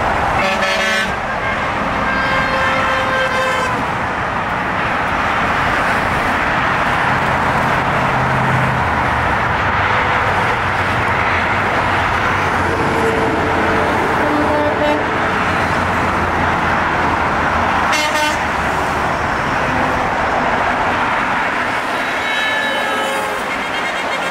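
Steady roar of cars passing at highway speed, with car horns honking several times: short toots near the start, a few in the middle and a longer run of honking near the end.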